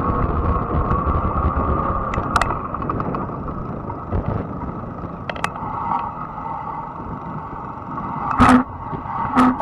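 Fat-tire e-bike being ridden: a steady whine, typical of the electric hub motor, over low tyre and wind rumble. Near the end come two loud sharp knocks about a second apart as the bike jolts over bumps.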